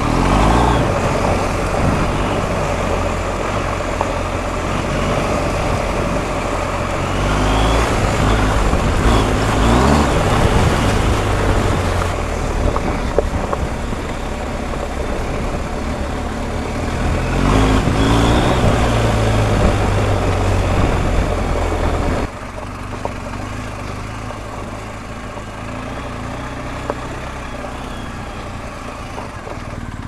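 BMW R 1250 GS Adventure's boxer-twin engine running under way, with heavy wind noise on the microphone. The engine note rises twice as the bike accelerates. About two-thirds of the way in, the sound drops suddenly to a quieter, steadier engine note.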